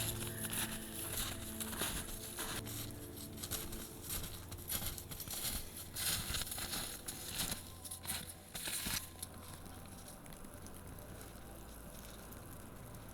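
Irregular crinkling and rustling handling noise, dense for about nine seconds and then dying away to a faint steady hiss, with faint background music fading out near the start.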